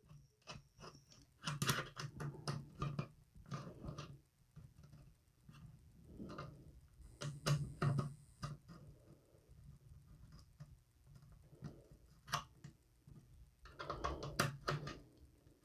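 Small scattered clicks and light rattling of an Allen key and M-LOK screws and nuts against a rifle's handguard as the nuts are turned to sit upright in the slots. The clicks come in three loose clusters: one starting about a second and a half in, one around the middle, and one near the end.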